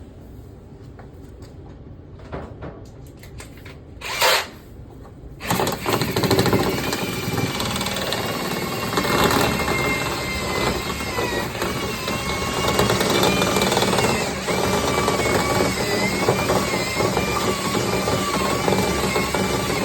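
A few brief knocks, then powered dryer-vent cleaning equipment starts up about five seconds in and runs loudly: a steady rushing noise with a faint whine that wavers in pitch.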